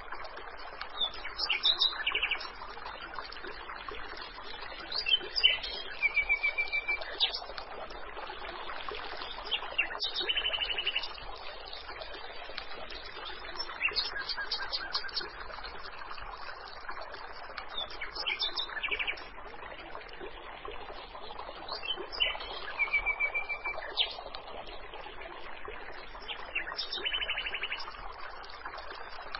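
Small birds chirping in short phrases every few seconds, with the same phrases recurring, over a steady trickle of running water.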